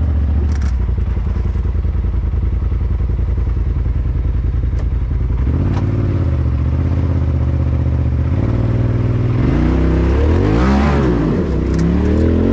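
Polaris RZR side-by-side's engine running while it crawls along a rutted dirt trail, with the revs rising and falling about halfway through and again, harder and in quick swings, near the end. A few light knocks come through over the engine.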